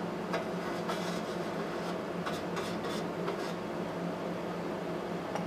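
A few faint, short scratchy strokes of sandpaper rubbing on the sheet-metal gas tank, mostly in the first half, over a steady machine hum.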